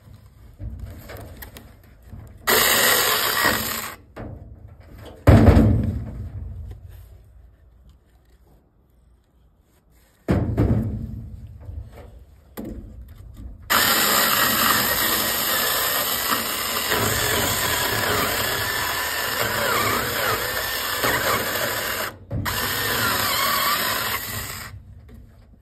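Cordless 6-inch mini chainsaw cutting into a log: a few short trigger bursts, some dying away as the chain coasts, then a long steady cut of about eight seconds, a brief break, and a shorter cut near the end.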